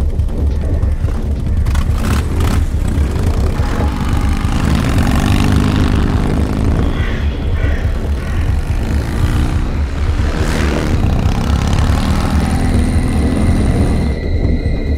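Motorcycle engine running with a deep steady rumble, its revs rising and falling twice, mixed with music. Steady high tones come in near the end.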